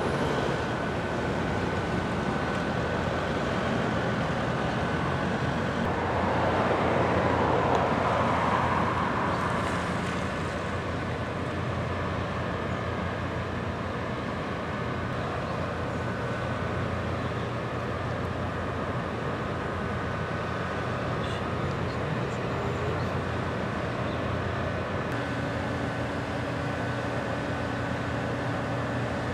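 Steady engine drone of the passing container ship and its escort tug, a low hum over outdoor noise. It swells louder for a few seconds about six seconds in, and a steady higher hum joins near the end.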